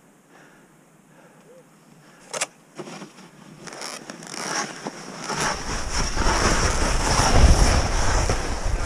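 Skis hissing and scraping over snow as the skier sets off down a steep chute, growing louder as speed builds, with wind rumbling on the microphone over the last few seconds. A single sharp click about two and a half seconds in.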